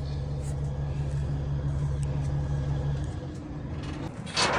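Truck engine idling with a steady low hum, then switched off about three seconds in; a short burst of noise follows near the end.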